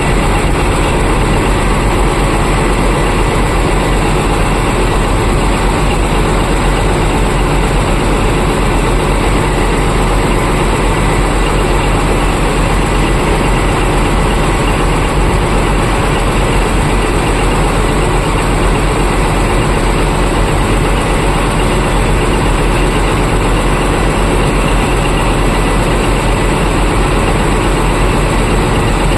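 Heavy mining vehicle engine running steadily at an even pace, with no revving.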